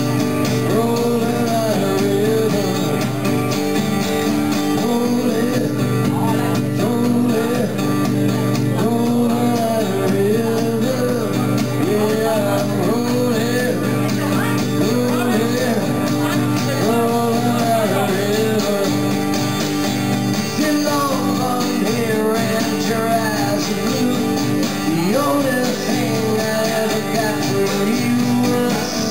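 A man singing live into a microphone while playing an acoustic guitar, heard through a PA system.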